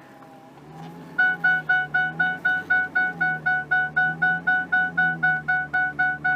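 A truck's electronic warning beeper sounding rapidly, about four even beeps a second, starting about a second in. Under it is the steady low idle of the old Ford F450's V10 engine.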